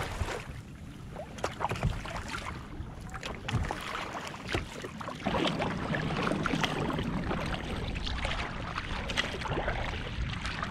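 Sea water lapping and splashing against a kayak's hull on choppy water, with wind rumbling on the microphone; the wind rumble grows stronger and steadier about halfway through.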